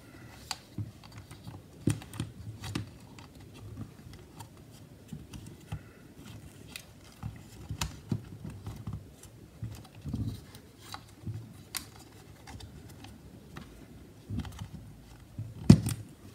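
Scattered small clicks, taps and soft knocks of hands fitting the cooling fan and its cable back into an open MacBook Air's aluminium case, with a sharper knock near the end.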